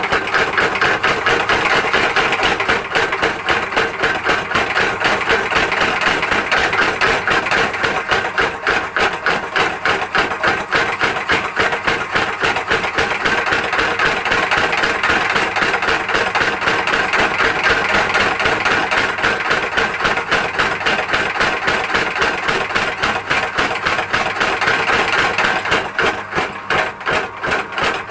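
Home-built mechanical power hammer for forging iron running, striking in a rapid, steady train of blows.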